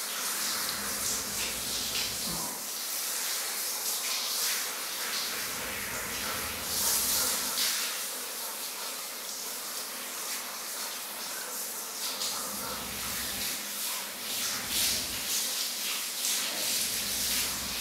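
Handheld shower head spraying a steady stream of water onto a wet dog's coat and the tiled shower floor.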